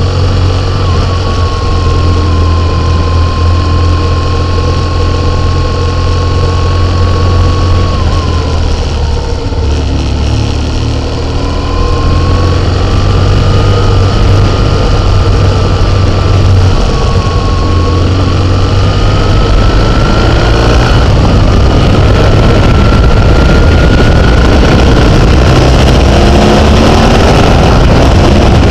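Vehicle engine running on a downhill drive, its note dipping and rising with speed. Rushing noise grows louder over the second half as the vehicle speeds up.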